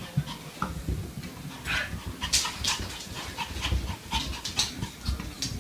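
Small dog breathing in short, sharp huffs, with soft irregular thumps as it hops down carpeted stairs.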